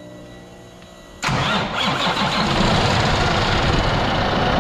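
Freshly overhauled Cummins ISX inline-six diesel firing on its first start after the rebuild: after about a second of faint hum it catches abruptly and runs loud and steady. The start is smooth, with no hesitation.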